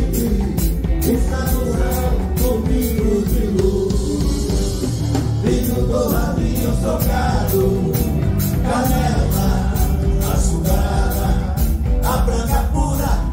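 Live music from an orchestra and band with men singing into microphones over a steady beat.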